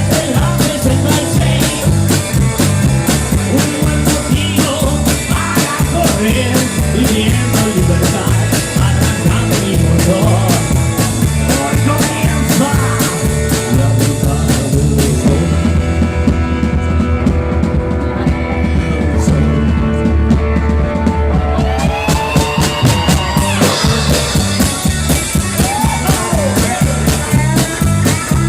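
Rock band playing live, with a steady drum beat under bass and other instruments. A little past the halfway point the cymbals and highest sounds drop out for several seconds over a held low bass note, then the full band comes back in.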